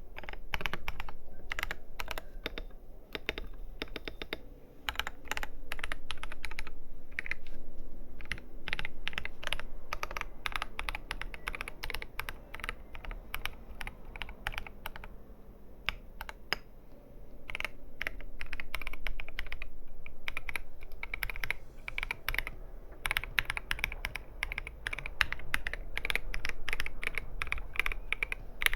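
Keys of an R2 KBD67 Lite gasket-mount mechanical keyboard being pressed in quick runs. The keyboard has Durock Koala tactile switches, lubed with Krytox 205g0 and filmed, under PBT XDA keycaps.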